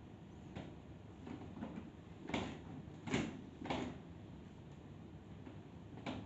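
Dishwasher being handled: about six sharp clunks and knocks of its door, racks or dishes, the three loudest close together in the middle.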